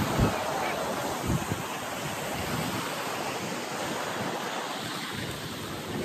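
Surf washing on a sandy beach, with wind buffeting the phone's microphone in a few low gusts.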